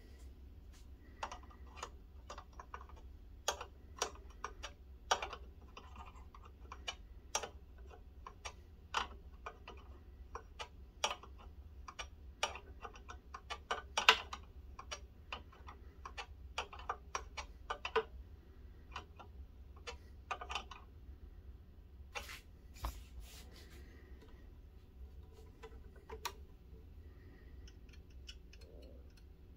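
Irregular light metallic clicks and taps of a small wrench and hand tools working on the metal hose fittings of a scale model excavator's hydraulic lines, thinning out after about twenty seconds, over a faint low hum.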